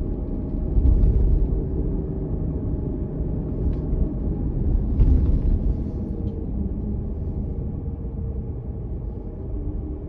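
Low rumble of a car driving at low speed, engine and road noise with a faint steady hum. It swells louder about a second in and again around five seconds in, then eases off slightly near the end.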